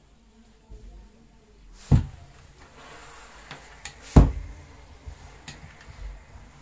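Two heavy thumps about two seconds apart on a pressing table as a gravity-feed steam iron is worked over trouser fabric, with a faint hiss of steam between them.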